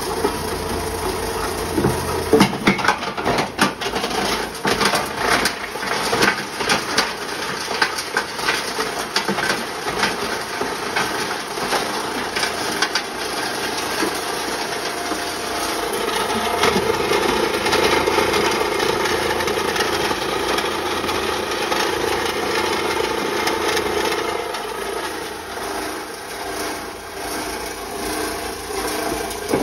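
A 15 hp multi-material grinder running steadily while cow horns are fed in. Its hum is broken by a dense, irregular stream of sharp cracks and rattles as the horns are smashed down to fit through its 6 mm screen.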